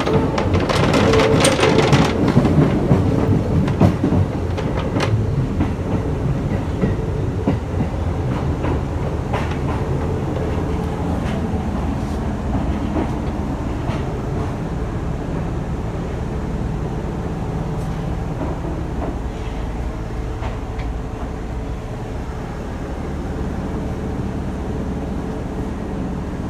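Gangway bridge plate at the coupling between two Kintetsu train cars rattling and clattering with vibration over the rumble of the running train, with many sharp clacks in the first few seconds before it settles into a steadier rattle. This plate normally just squeaks metal-on-metal, so the rattle is an unusual noise.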